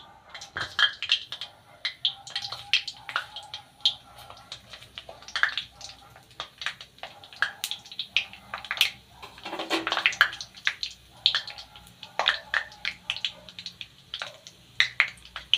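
Bay leaves and whole garam masala spices crackling and popping irregularly in hot oil in a kadai: the sputter of whole spices being tempered.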